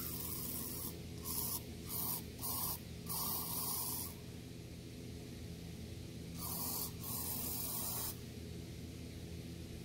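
Aerosol carburetor cleaner sprayed through its straw into a small-engine carburetor's passages: a quick series of short hissing bursts, then two longer ones about six and a half seconds in. Each burst is a check that the cleaned passages flow clear.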